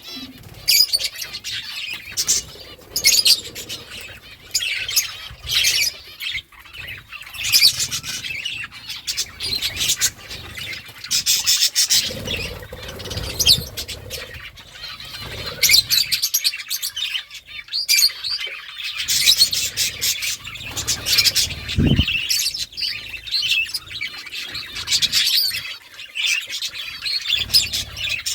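Budgerigars chirping and chattering in quick bursts, on and off throughout, with one sharp knock about two-thirds of the way through.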